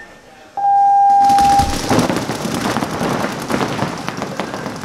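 A loud electronic start tone sounds for about a second, and then many paintball markers open fire at once in a dense, rapid crackle of shots that carries on.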